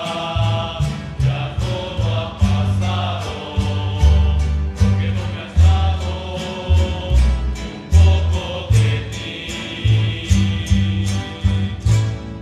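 Rondalla playing: guitars strummed on a steady beat over a walking bass, with a chorus of voices holding long notes. The music dies away at the very end.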